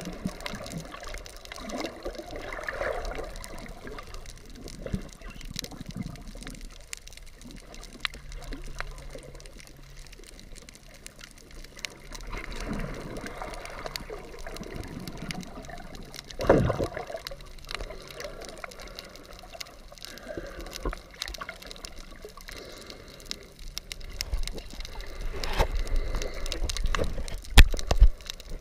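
Water gurgling and sloshing around a submerged GoPro camera, in soft irregular swishes. One stronger swish comes a little past halfway, and louder splashy bursts come near the end.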